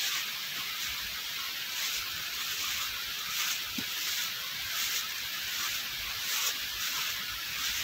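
Steady high hiss of background noise, swelling faintly about every second and a half.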